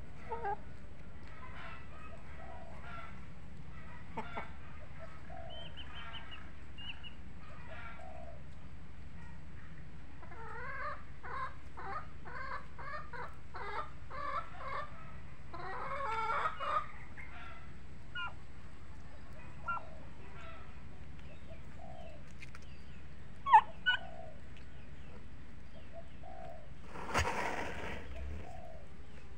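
Domestic chickens and turkeys calling: scattered clucks and short calls, with a run of rapid calls about a third of the way in. There is a sharp click about two thirds of the way through and a short hissing burst near the end.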